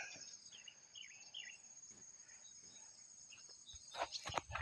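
Faint, steady, high-pitched insect trilling, with a few short chirps in the first couple of seconds and scattered clicks and knocks near the end.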